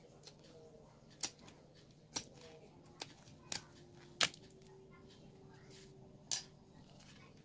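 A pointed metal tool pierces and cuts the tape around the end cap of a shipping tube, making about six sharp clicks and snaps spread over several seconds, over a faint steady hum.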